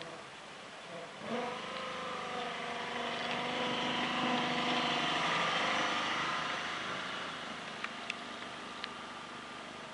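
Engine of a 7¼-inch gauge miniature diesel-outline locomotive pulling away and running close past, its steady engine note growing louder to a peak midway and then fading as it moves off. A few sharp clicks near the end.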